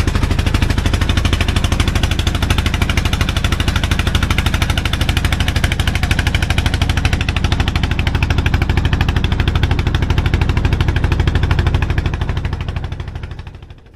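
A small fishing boat's engine running steadily close by, a loud, rapid, even knocking over a low hum. It fades out near the end.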